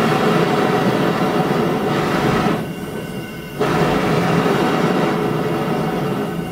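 Homemade Frosty T venturi propane forge burner running with a loud, steady rushing hiss, burning a rich, carburizing flame. About two and a half seconds in, it turns quieter and duller for about a second, then comes back abruptly at full strength.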